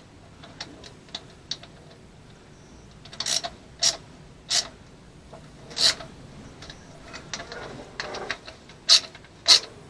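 Irregular sharp clicks and knocks of hands and tools working on sink drain hose fittings and clamps: about six louder clicks with fainter ticks between.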